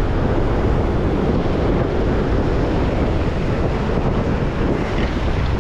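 Steady wind buffeting the microphone over ocean surf washing up onto a rock ledge.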